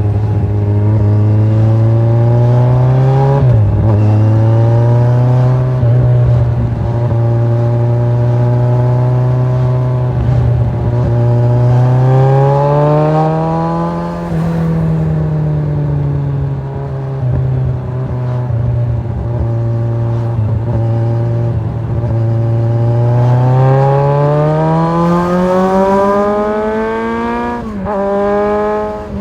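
Kawasaki Z1000 inline-four motorcycle engine under way, running steadily and pulling harder three times, its pitch climbing and then dropping sharply at each gear change.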